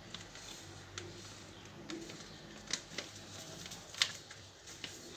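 Faint crinkling of a foil sachet of ice-cream powder as it is opened and emptied over a bowl of milk, with a few soft clicks.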